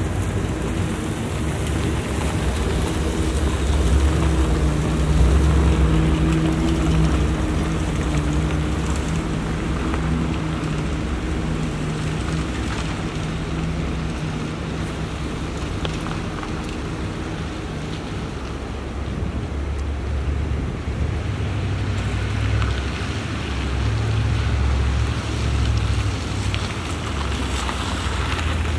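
Plow truck engine running as the truck works the lot, with a steady hum for the first half. A deeper, louder rumble follows near the end as the truck comes close, over a noise that sounds like wind on the microphone.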